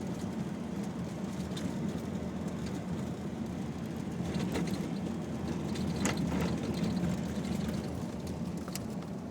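Steady rumble of a vehicle driving, its engine and tyres on the road, with a few brief clicks or rattles about four and a half, six and nearly nine seconds in.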